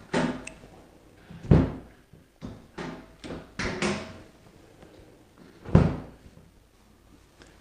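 Chiropractic drop table's spring-loaded section dropping under a thrust to the patient's back, two sharp thunks about four seconds apart, with lighter clicks and rustling between them.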